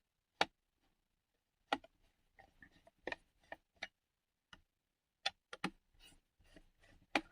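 A digital multimeter's battery compartment being opened by hand: a string of sharp plastic clicks and taps at uneven intervals, with faint handling rustle between them.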